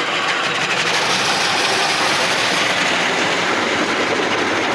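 High-pressure water jets of a Saber touchless automatic car wash spraying against the car's body and windows, heard from inside the cabin as a loud, steady rush of water.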